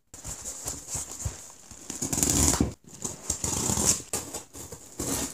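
A knife slicing through the packing tape on a cardboard box, with cardboard scraping and rustling. It comes in several rasping strokes, loudest about two seconds in and again near four seconds.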